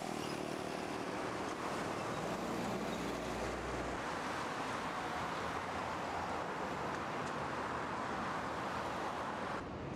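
Steady city traffic noise from a busy avenue, with a truck's engine passing in the first second.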